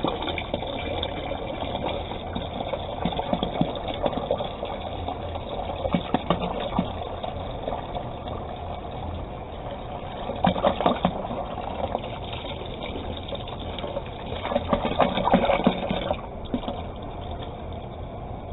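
Water being poured steadily into a container of thick homemade liquid laundry soap, splashing louder twice, then stopping about 16 seconds in.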